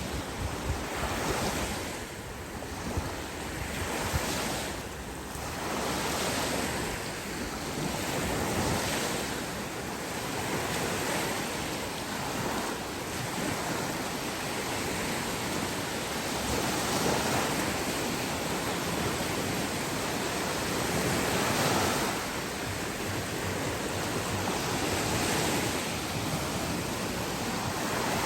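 Sea waves breaking and washing up a beach, the surf swelling and easing every few seconds, with some wind on the microphone.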